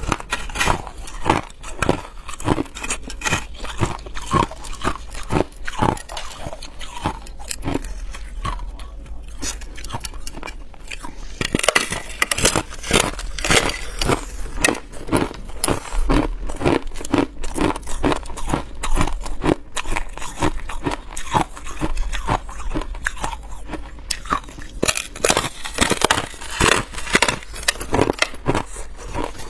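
A person biting and chewing hard ice off a frosted ice slab: dense, crisp crunching and cracking, with heavier bursts of crunching about twelve seconds in and again near the end.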